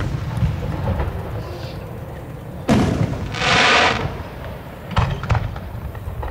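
Aerial fireworks shells bursting with rumbling echoes. A loud bang comes about two and a half seconds in, followed by a short hiss, and two sharper bangs follow close together about five seconds in.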